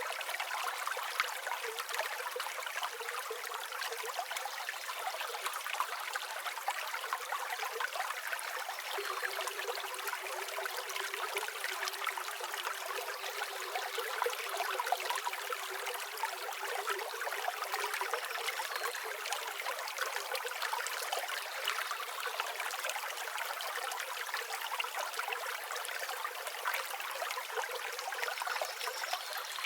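Small stream flowing, a steady trickling and babbling of water with many fine splashes, thin, with no deep rumble.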